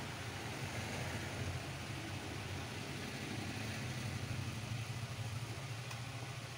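A steady low mechanical hum with an even hiss over it.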